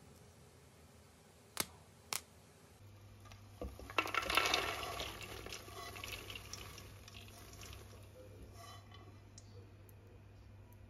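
Popped popcorn tipped from a pan into a bowl: a dense rustling, pattering pour that starts about four seconds in, is loudest at first and thins out over the next few seconds. Two sharp clicks come before it, with a low steady hum behind.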